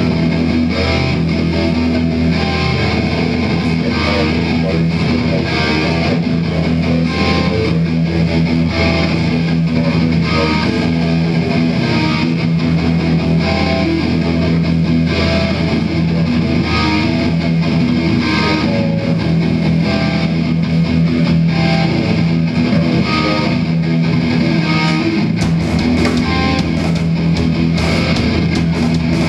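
Live metal band playing loud electric guitars through Marshall stacks, holding a steady droning riff. Near the end, sharper hits and a deeper bass come in.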